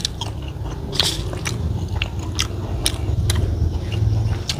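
Close-up mouth sounds of a person chewing a mouthful of biryani rice and lamb, with sharp wet smacking clicks about twice a second.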